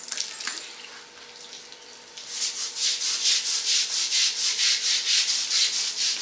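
Scrubbing of a wet elephant's hide during its bath: quick, rhythmic rasping strokes, about four or five a second, starting about two seconds in.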